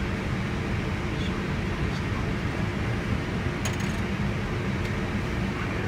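Steady rumble and air hiss of an Airbus airliner's cockpit while the jet taxis onto the runway. A short rattle of clicks comes a little past halfway as the sun visor is moved.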